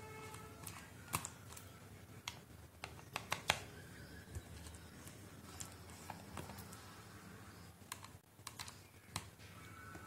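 Precision screwdriver working the small cover screws of a laptop hard drive: faint, irregular clicks and ticks of the bit and screws against the metal case, coming in small clusters.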